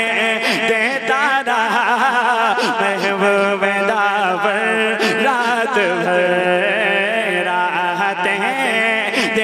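A man singing a naat in a long wordless melismatic passage, his voice bending and wavering up and down in pitch without a break.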